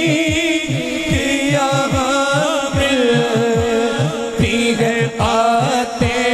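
A man singing an Urdu naat through a stage microphone and PA, his voice gliding in ornamented, wavering lines, over an evenly repeating low beat.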